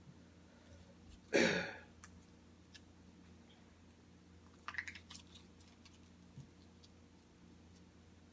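A person eating chicken nuggets: a loud brief mouth or breath noise just over a second in, then a cluster of small clicks and smacks of chewing near the middle, with faint ticks between.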